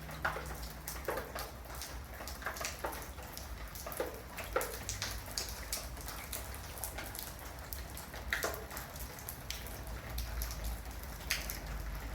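Scattered, irregular ticks and clicks over a steady low rumble, with no regular rhythm.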